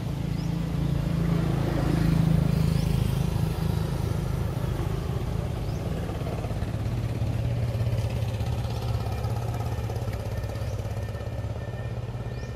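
Steady low hum of a motor vehicle's engine, swelling to its loudest about two seconds in, then easing and settling to a lower pitch about halfway through.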